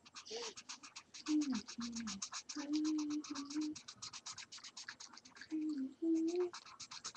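A felt-tip marker scribbling on paper in quick back-and-forth strokes, several a second, as an area is coloured in. A voice hums a few short notes over it at times.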